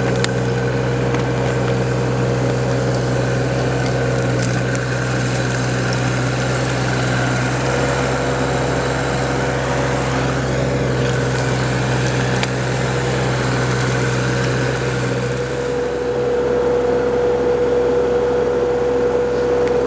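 Backhoe's diesel engine running steadily under digging work, with a few light clinks early on; about 15 seconds in the engine note shifts and grows a little louder.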